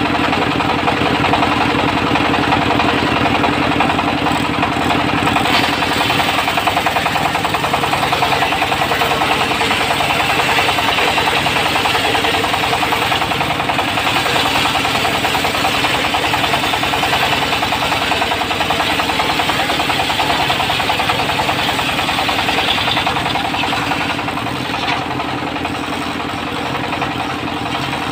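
Diesel engine of a mobile circular-saw sawmill running steadily under load, with a rapid even firing beat and a dense hiss from the spinning saw blade that swells at times. The sound eases slightly near the end.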